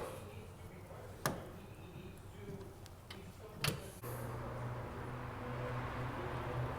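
A few separate sharp metallic clicks and clinks of hand tools on the rear brake caliper bracket as its bolts are taken out. About four seconds in, a steady low hum starts.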